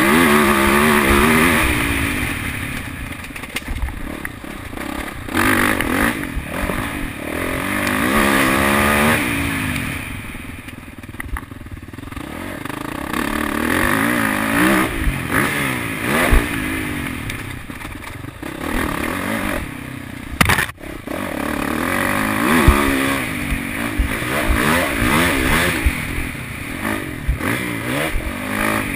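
Dirt bike engine revving up and falling back again and again as the rider accelerates and shifts around a motocross track, picked up by a helmet-mounted camera. Scattered knocks from the bike over bumps run through it.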